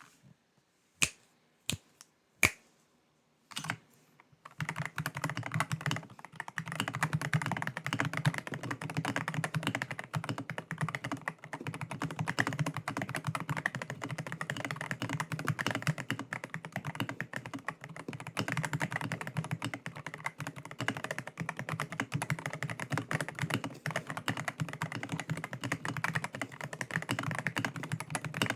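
Akko PC75B Plus mechanical keyboard with Akko Jelly Pink linear switches being typed on: a few single sharp clicks in the first seconds, then fast continuous typing from about four and a half seconds in.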